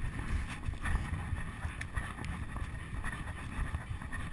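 Wind rushing over the camera microphone on a horse moving at speed across grass, a steady low rumble with faint irregular thuds of hoofbeats.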